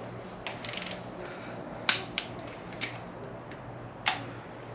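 Hand tools working on the connecting-rod cap bolts of a Toyota 1JZ-GTE bottom end: a short quick run of ratchet clicks and several separate sharp metallic clicks, over a low steady hum.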